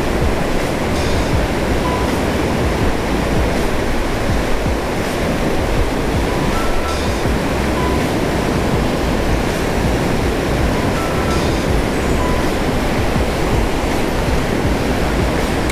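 Water pouring through a concrete dam's spillway gates into the river below: a steady, loud rush of white water.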